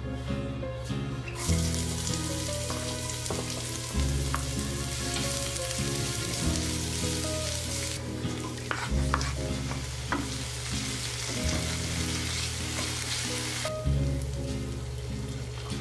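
Chopped tomato, onion and garlic sizzling in hot oil in a frying pan as they are stirred with a wooden spatula, with a few sharp clacks of the spatula against the pan about halfway through. The sizzle cuts off suddenly near the end.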